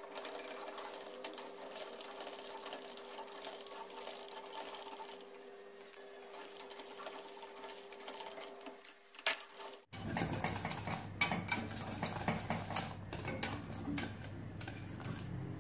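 Wire whisk stirring thickening pastry cream in a stainless steel saucepan, the wires scraping and clicking against the pan in a fast rhythm. The clicking gets louder and denser about ten seconds in, with a faint steady hum under the first part.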